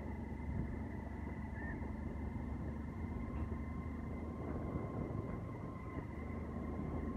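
Steady engine and road noise of a vehicle driving along, heard from on board: a constant low rumble with a faint steady whine above it.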